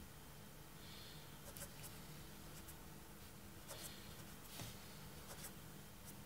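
Faint scratching of a marker pen writing on paper, stroke by stroke, in short irregular strokes.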